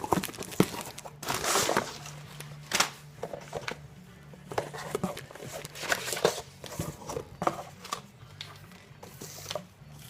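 Crinkling, rustling and scattered clicks and tears of packaging being handled and opened by hand, as a small mail-order package is unpacked.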